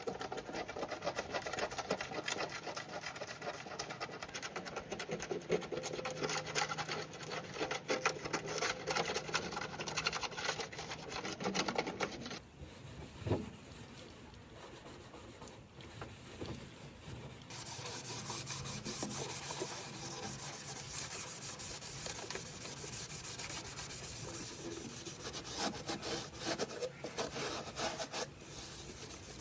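Rapid, continuous scraping, pausing for a few seconds about halfway through.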